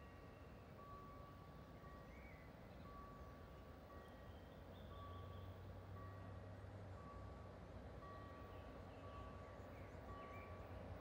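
Faint electronic warning beeps, one short tone about every second, with a low distant rumble that grows from about five seconds in.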